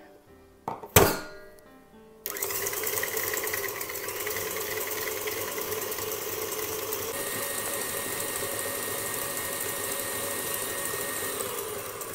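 A sharp knock about a second in, then a KitchenAid Ultra Power tilt-head stand mixer starts up and runs steadily, its wire whisk beating egg yolks and sugar in the steel bowl with a steady motor whine.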